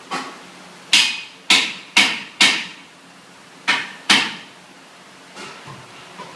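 A series of sharp, hammer-like knocks with short ringing tails: seven loud ones in the first four seconds or so, irregularly spaced, followed by a few fainter taps near the end.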